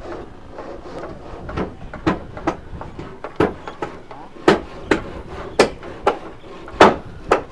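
Sharp knocks on wood at an uneven pace, roughly one or two a second, growing louder from about four seconds in.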